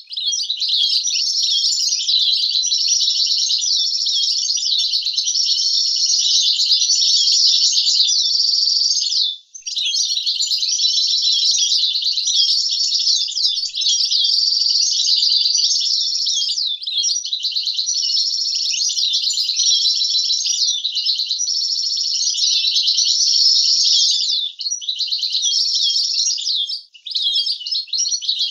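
European goldfinch singing a long, continuous, fast twittering song, with a short break about a third of the way in and another near the end.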